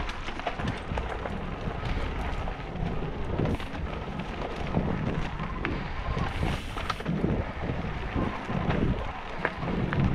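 Mountain bike rolling fast downhill on a dirt trail strewn with dry leaves and stones: wind buffeting the microphone with a low rumble, tyre noise over the leaves and dirt, and frequent short clicks and rattles from the bike over the bumps.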